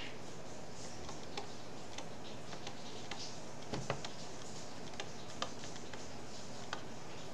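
Light, irregular clicks and taps of a stylus on a tablet while handwriting, over a steady faint hiss.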